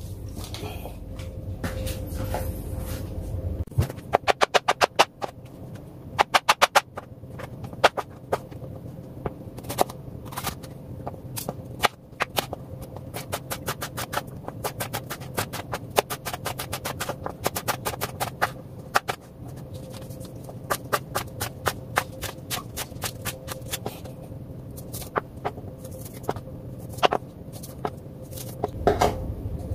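Kitchen knife slicing red bell pepper, mushrooms and spring onion on a plastic cutting board: sharp knocks of the blade on the board, in quick runs of several strokes with short pauses between.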